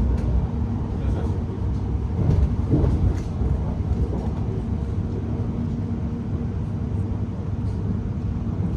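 Cabin of a moving Class 701 'Arterio' electric train: a steady low rumble of the wheels on the track under a faint steady hum, with a few knocks about two to three seconds in.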